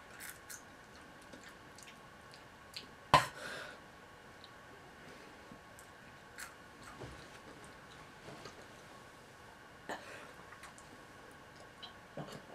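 Crickets being chewed and crunched in the mouth, quietly, with scattered small clicks and one sharp click about three seconds in.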